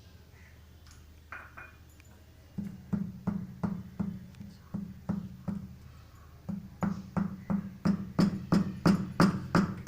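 Dry ginger being pounded to powder with a mortar and pestle: steady strikes about three a second, starting a couple of seconds in, with a short break a little past the middle, then resuming and getting louder.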